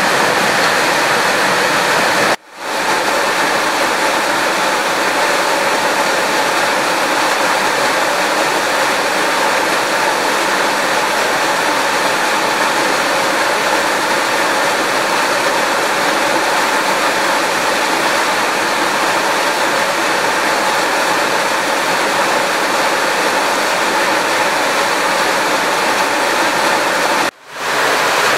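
Steady, loud rushing noise of water, with no voices. It cuts out abruptly for a moment twice, about two seconds in and near the end.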